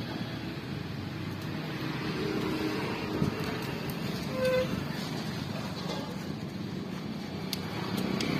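Steady low motor-vehicle rumble, with a short horn beep about four and a half seconds in.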